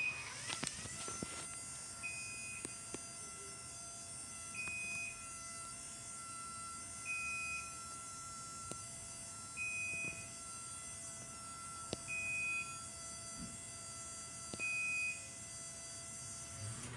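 LiftMaster 87504-267 garage door opener running on its battery backup, the motor giving a quiet, steady whine as it moves the door. A short high beep sounds about every two and a half seconds, seven times, the warning that the opener is working on battery power.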